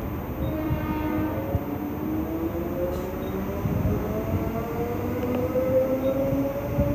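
Two Queensland Rail diesel-electric locomotives, 2490H and 2413, approaching at the head of a loaded ballast train: a steady low engine rumble with a whine of several tones that slowly rises in pitch.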